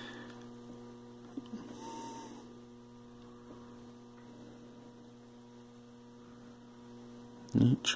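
Steady electrical mains hum, a low buzz with evenly spaced overtones, with a couple of faint clicks about a second and a half in.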